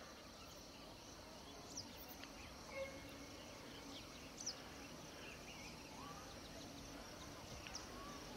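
Faint outdoor evening ambience: a steady, high insect chorus, with a few short, high chirps about two and four and a half seconds in.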